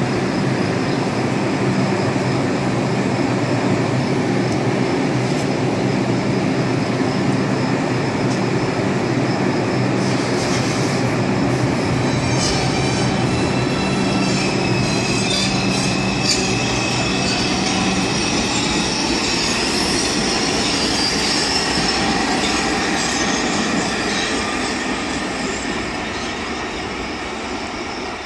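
R142 subway train pulling away along the track, with a steady low hum and, from about 12 s to 22 s, high wheel squeal on the rails mixed with a few clicks. The sound fades over the last few seconds as the train recedes.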